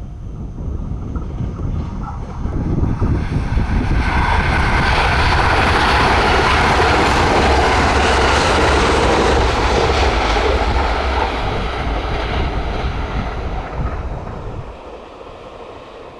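A train passing close by. Its running noise builds over the first few seconds, stays loud for several seconds, then fades away near the end.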